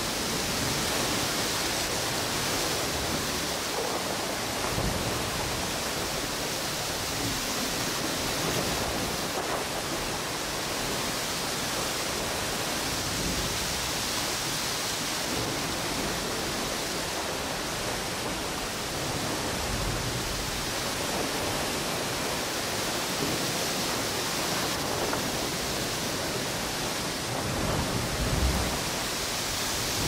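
Steady rushing noise of storm wind and ocean surf on a tropical beach, with a few brief low gusts, the strongest near the end.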